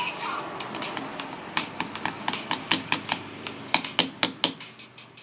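Quick, irregular metallic clicks and taps of a small hand tool against a metal link watch bracelet, about a dozen sharp strikes starting about a second and a half in and stopping shortly before the end.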